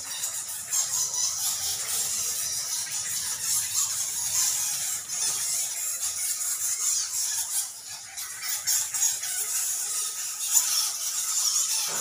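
A large colony of roosting bats squeaking, with many high-pitched calls overlapping in a dense, unbroken chorus.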